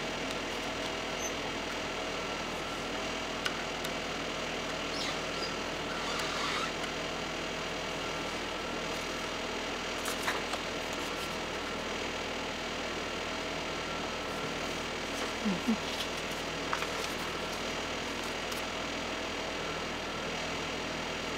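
Steady mechanical hum holding a few fixed tones, with a handful of light clicks and small knocks from paper items being handled, clearest about ten seconds in and twice in quick succession a little after halfway.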